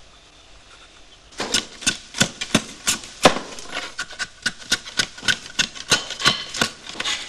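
Bamboo being split into thin strips with a knife for basket weaving: an irregular run of sharp cracks and clicks, several a second, starting about a second and a half in.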